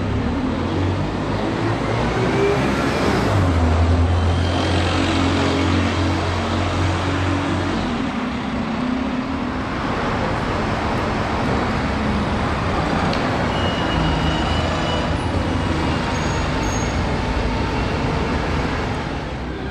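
Diesel engine of an ADL Enviro 200 single-deck bus running and pulling away in street traffic, with a strong low drone loudest about four seconds in, over steady road noise from passing cars.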